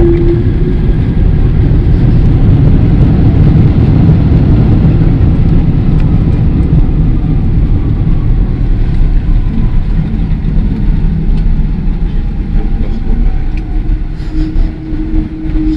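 Boeing 777 airliner heard from inside the cabin as it rolls along the runway after landing: a loud, steady low rumble of engines and wheels, with a faint whine falling in pitch in the middle, easing off near the end.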